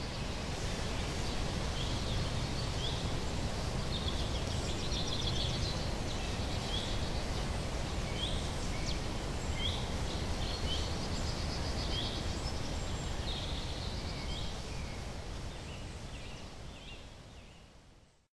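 Outdoor ambience: many short bird chirps and trills over a steady rumbling background noise, fading out near the end.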